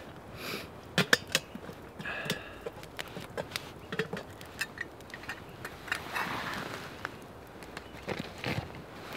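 Small wood fire crackling in a metal twig stove, with irregular sharp pops and ticks, while a metal cook pot and its lid clink and knock, loudest about a second in. A brief rustle of clothing comes about six seconds in.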